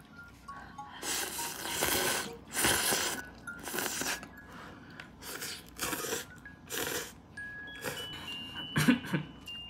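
Someone slurping spicy instant cup ramen noodles: a long slurp, then a string of shorter slurps, with a sharp louder one near the end.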